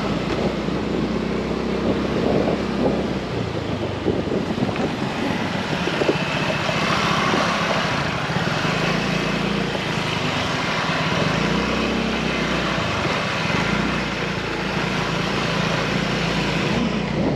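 Motorbike engine running on the move, its note rising and falling, with wind buffeting the microphone.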